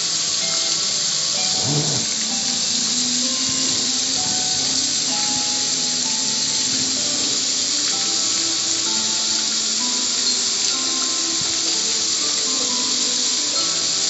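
Garden hose spraying water onto a metal gas grill, a steady hiss of water on the lid, with music playing underneath.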